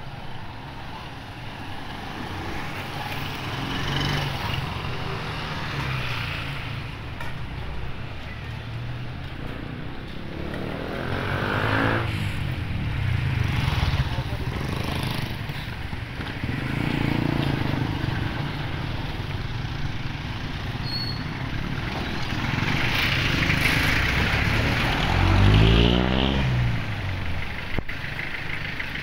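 Street traffic: motorcycles and motorized tricycles running along the road. Two vehicles pass close by, one about twelve seconds in and a louder one near the end.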